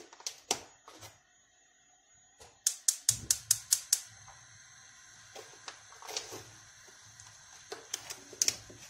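Gas stove igniter clicking in a fast even run, about six clicks a second for just over a second, then the burner catching with a low steady hum. Occasional crackles come from the hot oil in the frying pan.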